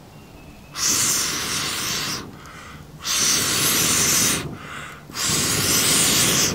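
A person blowing hard on campfire embers to coax them into flame: three long blows of about a second and a half each, with quicker in-breaths between them.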